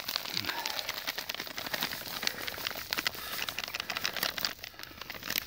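Groundbait with soaked pellets being mixed by hand: a continuous run of soft, irregular crackling and rustling.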